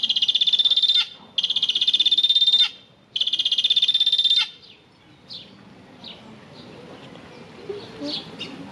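Vulturine guineafowl calling: three loud, fast-pulsed rattling bouts about a second long each, with short breaks between. After about four and a half seconds the calling stops and only a few faint short chirps are heard.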